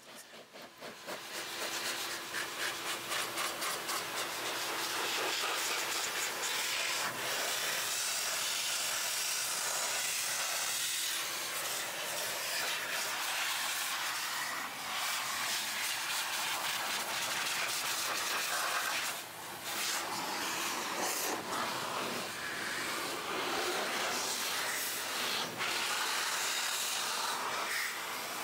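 Electric turbo car dryer blowing a steady rush of air over the engine compartment, spinning up in the first couple of seconds, with a faint steady motor hum under the air noise. It dips briefly just after the middle.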